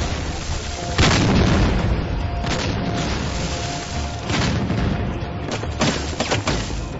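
Battle sound effects: a series of explosions over a continuous rumble. The loudest blast comes about a second in, others follow every second or two, and several come in quick succession near the end.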